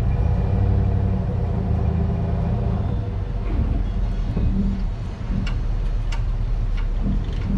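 Tow truck's engine running while backing a boat trailer down a launch ramp: a steady low rumble with a droning tone for the first three seconds, then a few light clicks in the second half.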